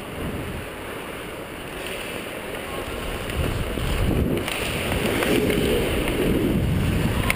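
Hockey skates scraping and carving on rink ice, with air rushing over the microphone as the wearer skates, getting louder about halfway through.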